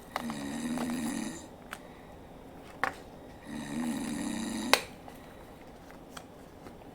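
Recorded snoring sound effect played back from a device: two long snores about three and a half seconds apart, each lasting over a second, with a few sharp clicks between them.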